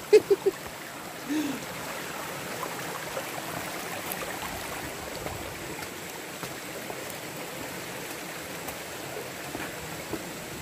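Shallow stream running over and between rocks, a steady trickling rush of water. A few short sounds of a voice come near the start.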